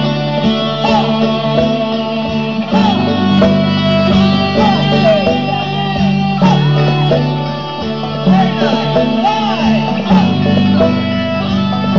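Guitar-led music with held bass notes and lead notes that bend in pitch.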